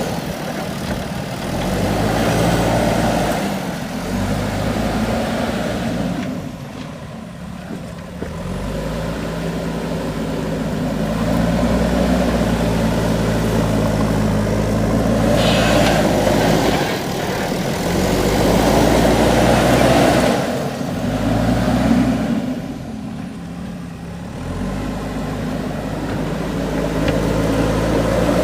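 Diesel engine of a JCB 3DX backhoe loader running under working load, its revs rising and falling. The engine note drops back twice, about a quarter of the way in and again near the end, then picks up again.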